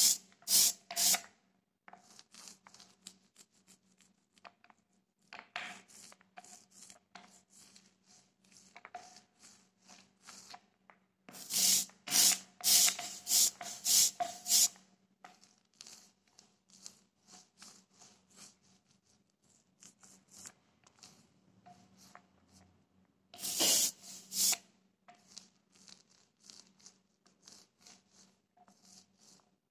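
Small hand ink roller rolled back and forth in quick rasping strokes while applying white ink for printing. There are three loud runs of strokes, one near the start, one about halfway through and one a little before the end, with softer strokes between them.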